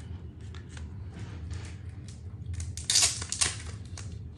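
Trading card being slid into a plastic penny sleeve and handled: a string of light plastic rustles and clicks, with a louder crinkle about three seconds in as it is set down on the foil pack wrappers.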